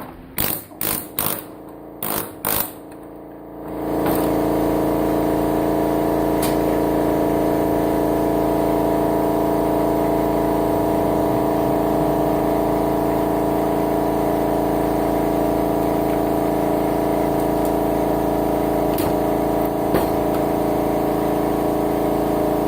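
About eight sharp knocks of parts or tools on the bench, then from about four seconds in a motor starts and runs steadily and loudly with an even hum, like an air compressor running for the air chisel.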